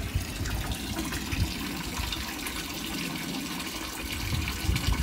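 Water running steadily into a fish tank, an even splashing hiss on the water's surface.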